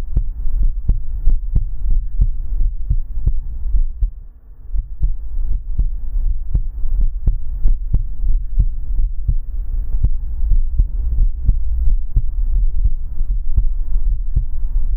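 Muffled heartbeat ASMR recording: a heavy low thumping, with many small sharp clicks crackling over it several times a second. It softens briefly about four seconds in.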